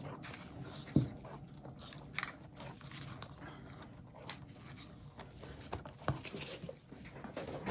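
A paint-pouring turntable being spun by hand under a wet canvas, with light irregular clicks and knocks, one sharp knock about a second in and a smaller one near six seconds.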